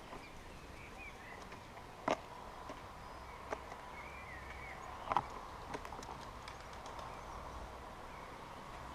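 Birds on a garden bird table tapping against the table close to the camera. There are several sharp knocks, the loudest about two and five seconds in, with faint bird chirps behind them.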